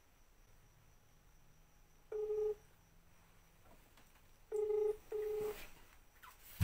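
Ringback tone from a smartphone on an outgoing call, heard through its speaker: a single steady beep, then a double beep about two seconds later. A sharp click comes right at the end.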